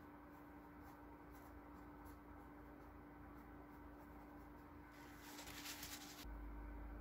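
Faint strokes of a paintbrush dragging oil paint across canvas, soft and scratchy, over a steady low hum. About five seconds in, a louder hissing rush lasts just over a second.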